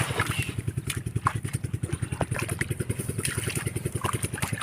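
A small engine running steadily with an even, rapid putter of about a dozen beats a second.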